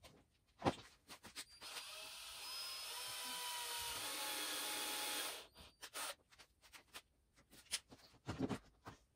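Cordless drill running for about three and a half seconds, driving a flat-head screw through a foam feather into a PVC pipe. Scattered handling clicks and knocks come before and after it.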